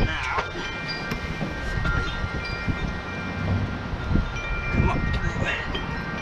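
Wind chimes ringing, several clear tones starting one after another and hanging on, over a steady low rumble.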